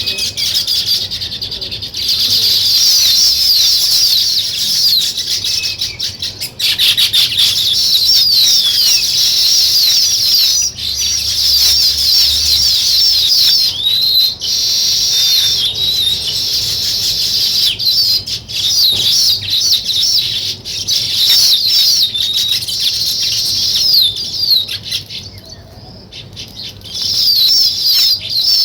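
A dense chorus of small sparrow-like birds chirping continuously, with many short falling chirps overlapping. The chorus thins out briefly near the end, then picks up again.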